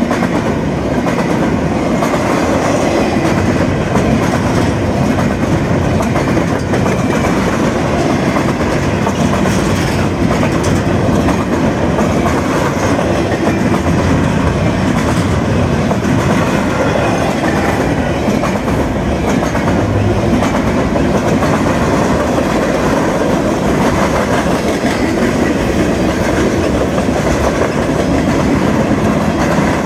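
Railroad cars rolling past steadily, their steel wheels running on the rails.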